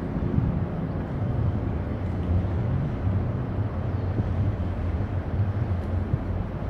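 Low, steady rumbling drone from a large Cape-size bulk ore carrier under way close by, with a low hum holding a constant pitch beneath a broad rush of noise.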